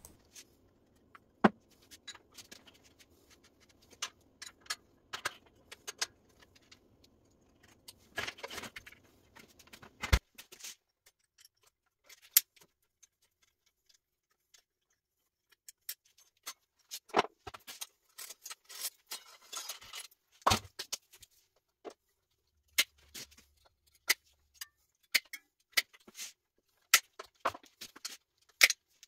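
Scattered metallic clicks and clinks of hand tools and bike parts as an old Schwinn mountain bike is worked on in a repair stand. There is a quiet stretch of a few seconds near the middle.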